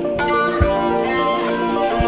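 Background music led by guitar, with a low drum beat.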